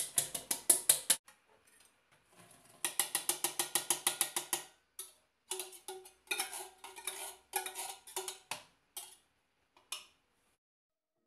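Tin can of corn knocked and scraped over a blender jar to empty out the last kernels: quick runs of metallic clicks, about eight a second, in several bursts with short pauses between them.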